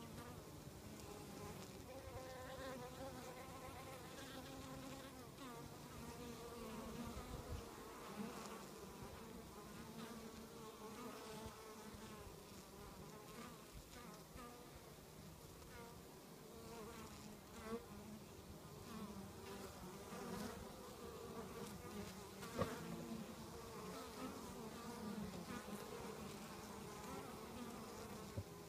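Honeybees buzzing at a hive entrance, workers flying in and landing; a wavering hum that swells and fades as single bees pass close. One sharp click about two-thirds of the way through.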